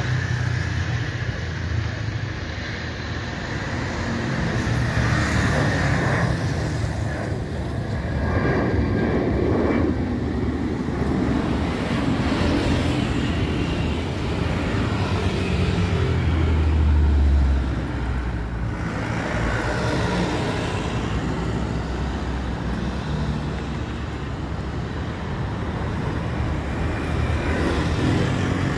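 Twin CFM56 turbofan engines of an Airbus A320-214 running at takeoff thrust as it lifts off and climbs out: a steady, loud jet noise with a deep rumble, loudest a little past the middle.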